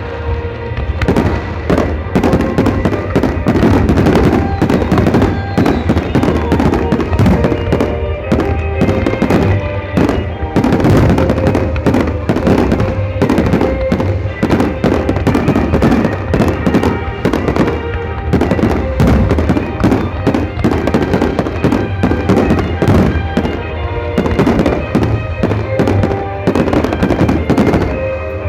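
Fireworks display: a dense, continuous barrage of explosions and crackling, many bursts a second, with music playing underneath.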